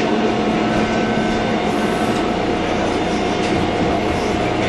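1981 Kawasaki subway-surface trolley car under way, heard from inside the car: a steady running rumble of wheels on rail with a constant whine over it.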